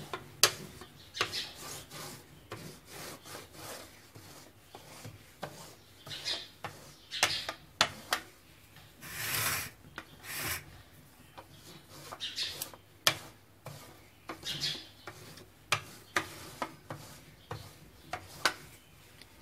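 Stainless-steel rolling pin rolling out pizza dough on a board: repeated rubbing, rolling strokes with scattered sharp clicks and knocks, and a longer, louder stroke about ten seconds in.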